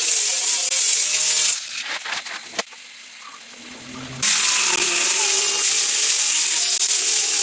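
Chainsaw cutting into wood. The loud cutting noise drops away for about three seconds after the first second and a half, with a sharp click in the lull, then starts again.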